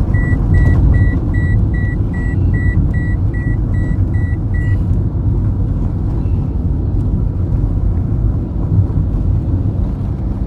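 Car interior road and engine noise: a steady low rumble as the car drives along. Over it a rapid electronic warning beep repeats about two and a half times a second and stops about halfway through.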